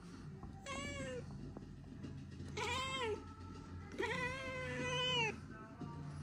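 Oriental Shorthair cat meowing three times, each call rising and then falling in pitch. The third call is the longest.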